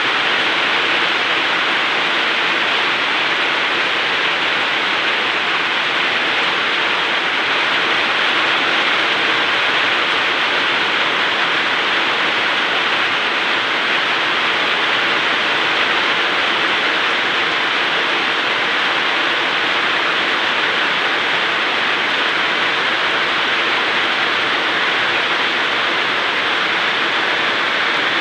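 Steady rain falling, an even hiss that holds unchanged, with no drops or thunder standing out.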